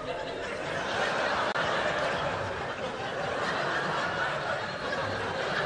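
Theatre audience laughing, swelling about a second in and holding steady.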